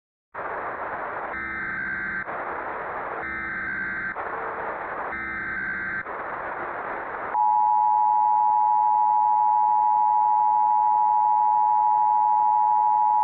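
Emergency Alert System header over a steady hiss of static: three short bursts of SAME data tones about two seconds apart, then the louder, steady EAS two-tone attention signal, held for about six seconds.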